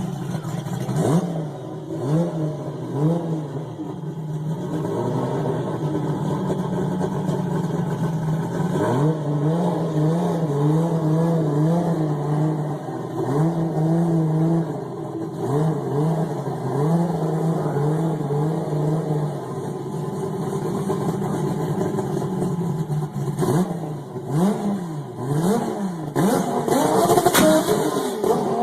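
Toyota Supra engine being revved over and over in short blips. The pitch rises, holds briefly at the top and drops back each time.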